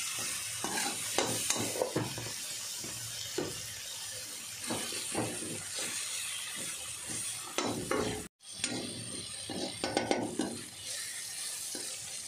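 Perforated steel spatula scraping and stirring vegetables in a hot kadhai in irregular strokes, over a steady sizzle of frying. The sound cuts out for a split second about two-thirds of the way in.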